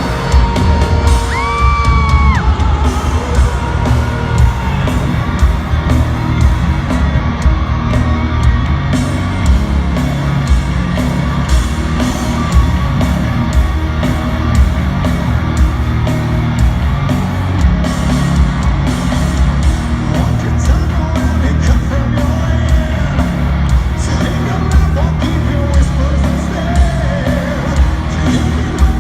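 Loud live heavy metal band playing, with electric guitar, drums and singing, and yells from the crowd; a guitar note bends up about two seconds in.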